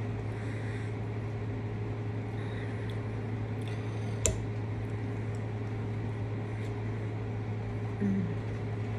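Steady low background hum in a small room, with one sharp clink of a metal fork against a ceramic dinner plate about four seconds in, a few faint clicks, and a short low sound near the end.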